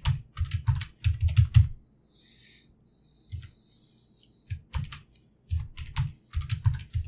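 Typing on a computer keyboard: quick runs of keystrokes, one run, a pause of about two seconds with a single keystroke, then a second run.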